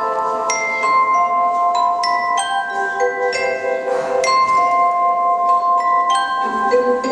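Instrumental music with no singing: a melody of bell-like struck notes, each ringing on and overlapping the next.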